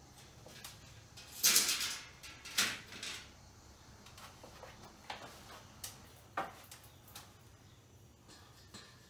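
About half a dozen short scrapes and knocks of objects being handled, the longest and loudest about a second and a half in.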